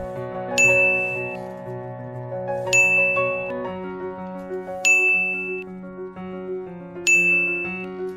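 A bright ding sound effect four times, about two seconds apart, each marking an emoji clue popping onto the screen, over soft background music.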